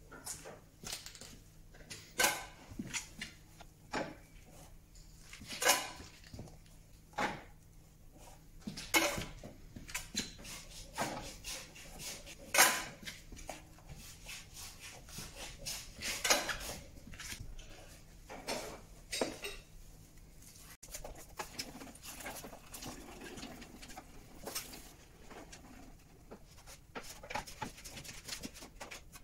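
Irregular sharp knocks and clatter from working a metal briquette press and handling the wet, pressed sawdust blocks, with quieter rustling and handling noise in the second half.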